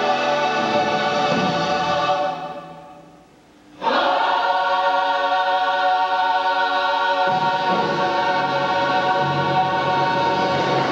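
Full stage-musical ensemble choir singing held chords: one chord fades away about two seconds in, then a loud sustained chord comes in suddenly about four seconds in and is held, its lower notes shifting about seven seconds in.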